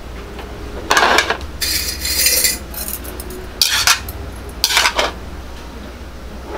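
Bowls and utensils clattering and clinking as cooked noodles are handled and portioned into bowls: a few short, sharp clatters and a longer hiss, over a steady low hum.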